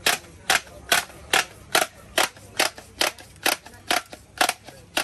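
Bump-feed trimmer head's knob ratcheting as it is turned clockwise by hand to wind trimmer line onto the spool: sharp, evenly spaced clicks, a little over two a second.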